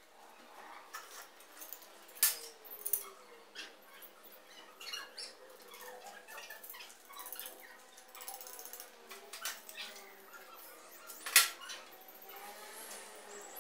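Hand tools and small steel pieces being handled and set down on a steel-topped workbench: a few sharp metal clacks, the loudest about two seconds in and near the end, with smaller clicks and rustling between.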